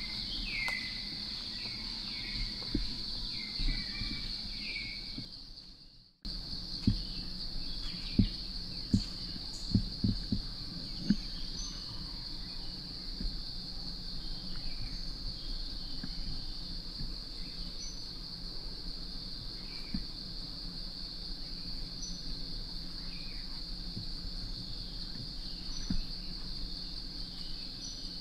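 Forest insects droning at one steady high pitch, with a bird giving a quick series of short falling calls in the first few seconds. About six seconds in the sound cuts out and comes back, followed by a run of sharp snaps or knocks, the loudest sounds here.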